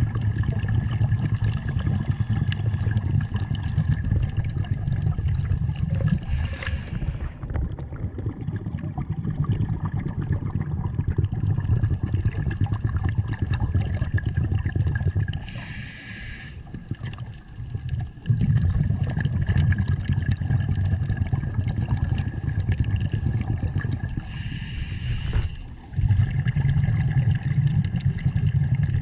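Scuba diver breathing through a regulator underwater: three short hissing inhalations about nine seconds apart, each followed by a long, gurgling rumble of exhaled bubbles.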